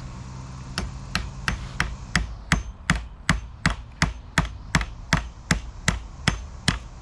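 A hammer driving a 3/8-by-3-inch sleeve anchor into a drilled patio paver with quick, even blows, about three a second, that start about a second in and carry on without a pause.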